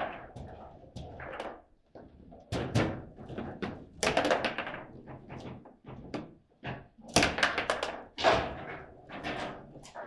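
Table football in play: a fast, irregular series of sharp knocks and thuds as the ball is struck by the player figures and bangs against the table.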